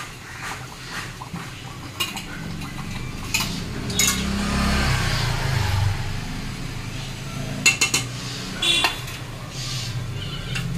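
A metal spatula and ladle clink and scrape against a steel plate and a metal kadai as fried dhoka pieces are pushed into a simmering curry and stirred, with several sharp knocks on the pan. A low steady hum runs underneath.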